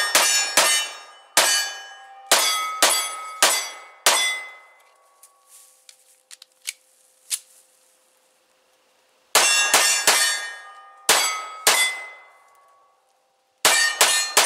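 Pistol shots fired in quick strings, each followed by a metallic ringing like struck steel targets: about eight shots, then a pause of a few seconds with small clicks of a magazine reload, then about six more shots and a last quick group of three near the end.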